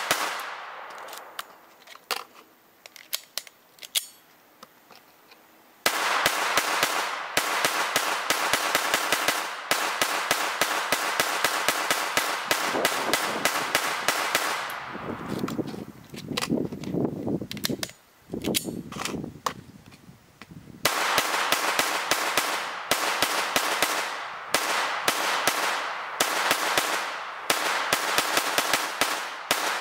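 Semi-automatic AR-15 rifle with a lightweight bolt carrier group fired in rapid, steady strings of about three shots a second, with a pause of a few seconds near the start.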